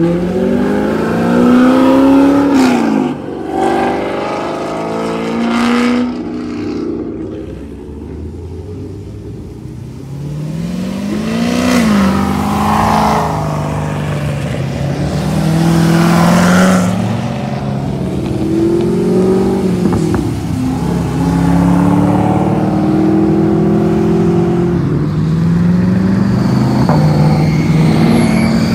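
Sports cars, Corvette V8s among them, accelerating hard one after another, each engine's pitch climbing and then dropping back at gear changes. Near the end an engine holds a steadier, slowly rising note.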